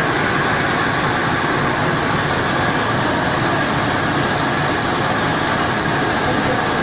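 Gas-fired steam boiler's burner and blower running: a steady, loud, even rushing hum that does not change.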